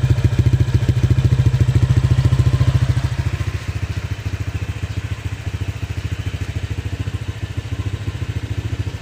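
Honda Click 125i scooter's single-cylinder engine idling steadily through an aftermarket MT8 exhaust pipe, with an even, pulsing exhaust beat. It settles slightly quieter about three seconds in.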